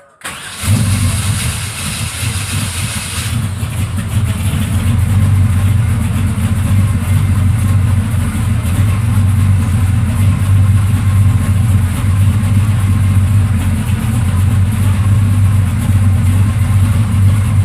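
Car engine starting almost at once and settling into a steady, loud low rumble at idle, with a bright hiss over it that drops away about three seconds in.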